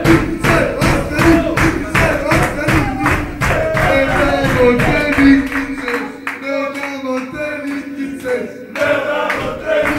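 A crowd of men singing together in unison, with rhythmic group hand-clapping about three claps a second. The clapping drops out for a few seconds past the middle while the singing carries on, then comes back near the end.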